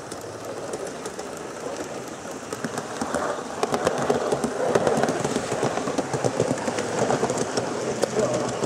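Gauge 1 live steam model train running on garden track: a rapid clickety-clack of wheels over the rails, growing louder from about three seconds in as it comes closer.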